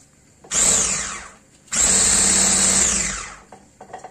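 Electric hand mixer beating cake batter, switched on in two bursts, a short one and then a longer one of about a second and a half. Each time it is let go, its whine falls away as the motor spins down.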